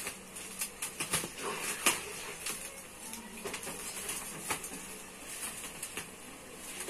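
Plastic bubble-wrap packaging crinkling and crackling as fingers pick and peel at the wrapping and its tape, in irregular sharp clicks that come thickest in the first couple of seconds.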